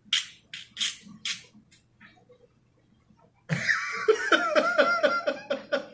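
A man's nervous laughter. It starts as a few short breathy laughs hissed through the teeth, then goes quiet, and about three and a half seconds in breaks into a loud burst of rapid, high-pitched laughing.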